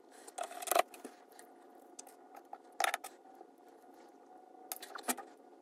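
Light clicks and taps of small parts of an HO-scale model steam locomotive being handled and fitted back together, in three short clusters, over a faint steady hum.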